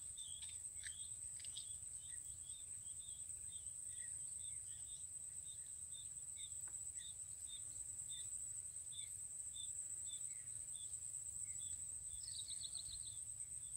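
Steady high-pitched insect drone, with a small chirp repeating about once or twice a second and a quick run of rapid chirps near the end.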